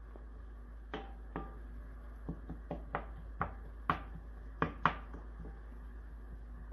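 Wooden spoon stirring chopped onion and green pepper in a nonstick frying pan, knocking and scraping against the pan about ten times at an uneven pace over the first five seconds.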